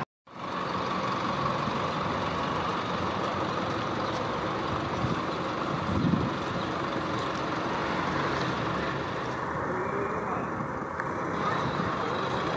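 Steady street traffic noise, starting after a split second of silence, with a brief low swell about six seconds in.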